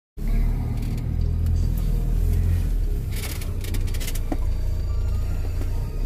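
Low, steady rumble of a car driving, heard from inside the cabin, with music playing alongside.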